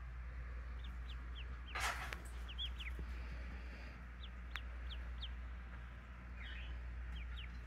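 Newly hatched Pekin ducklings giving scattered soft peeps, each a short high note sliding down in pitch, with a brief rustle about two seconds in.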